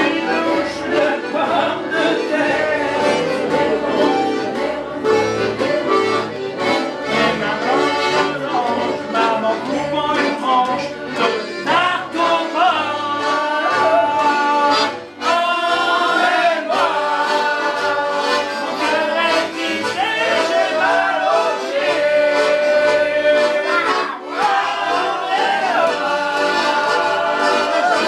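Instrumental break in a French folk song, with long held notes over a steady accompaniment.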